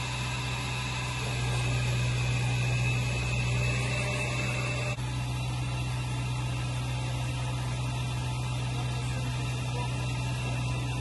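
Steady low hum of a tracked air-defence missile vehicle's power plant running, with an even rushing noise over it; the sound shifts slightly at an edit about five seconds in.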